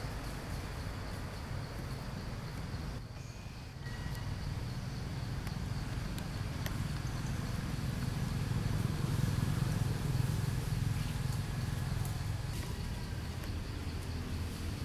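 Low rumble of a motor vehicle's engine, swelling about halfway through and easing off, over a faint steady insect drone.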